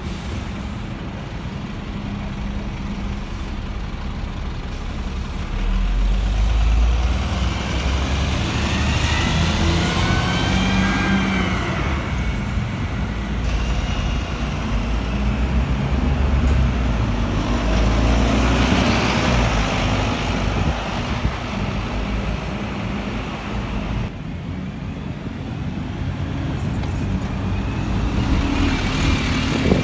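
Diesel city buses, double-deckers and a single-decker, running and pulling away from stops, with a low engine drone. Twice there is a whine that rises and then falls as a bus accelerates.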